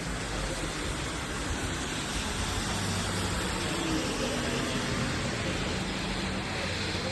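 Steady rain in a thunderstorm: an even, unbroken hiss, with a faint low hum underneath.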